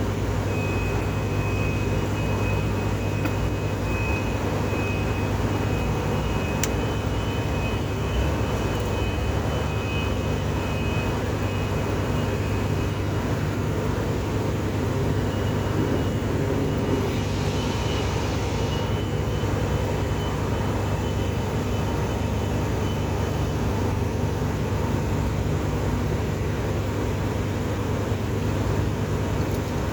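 Steady crackle of a stick-welding arc as a 7018 electrode burns on painted steel, over a steady low hum.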